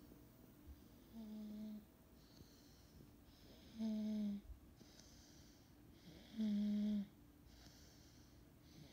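Soft snoring in slow, even breaths: a low, steady-pitched snore about every two and a half seconds, with a quieter breathing hiss between the snores.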